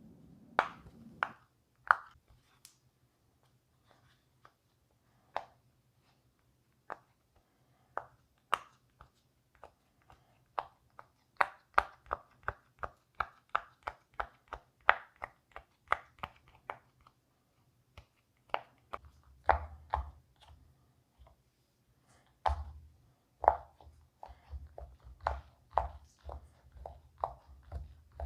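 Silicone pop-it fidget toy bubbles being pressed through one by one, each giving a short pop. The pops are scattered at first, come in a quick run of about two or three a second around the middle, and are joined by a low rumble of hands handling the toy in the second half.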